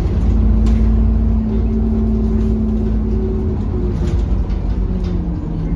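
A London bus running, with a deep engine rumble and steady humming tones that step up and down in pitch.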